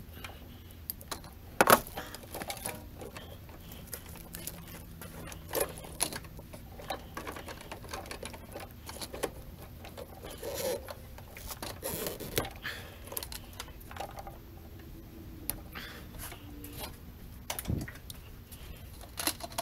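Pliers and plastic wiring-harness connectors clicking and rattling as a car's wiring harness is worked free by hand: irregular sharp clicks and small clatters, the loudest about two seconds in.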